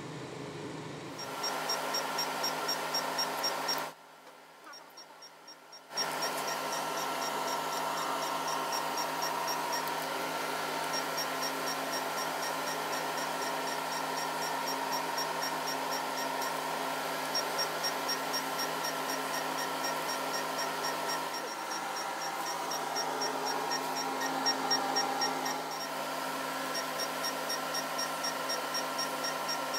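Diode-laser hair-removal machine running: a steady hum from its cooling unit, with short regular ticks about three a second that pause and resume several times as the handpiece fires its pulses.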